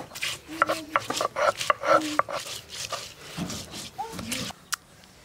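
A blade chopping food on a wooden board: a quick, irregular run of strokes for about three seconds, then fewer and slower strokes.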